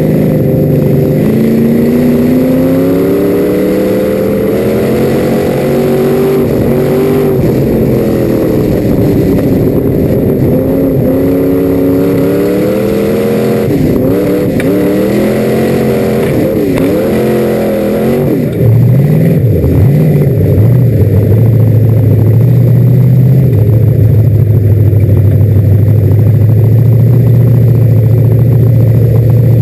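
Race car engine heard from inside its cockpit: for about the first two-thirds its pitch rises and falls as the throttle is worked at low speed, then it steps up louder and holds a steady low note as the car runs on around the dirt track.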